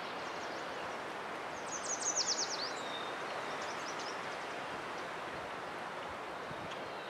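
Barn swallows twittering: a quick run of high chirps about two seconds in, then a few fainter calls, over a steady background hiss.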